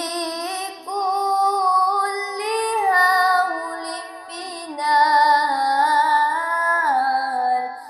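A woman singing solo, holding long notes and gliding smoothly from one pitch to the next.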